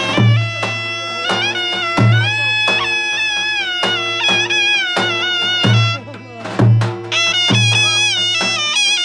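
Zurna playing a fast, ornamented folk melody over regular deep drum beats. The melody breaks off briefly about six seconds in, then resumes.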